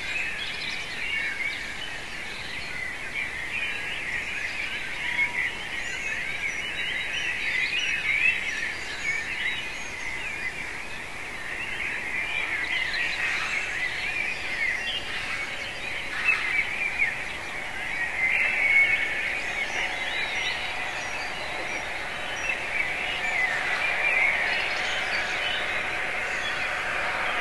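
Dawn chorus: many birds singing at once, a dense, continuous tangle of overlapping chirps and warbles.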